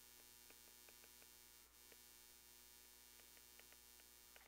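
Near silence: a faint steady electrical hum with faint, irregular light ticks of a stylus tapping and sliding on a tablet screen during handwriting.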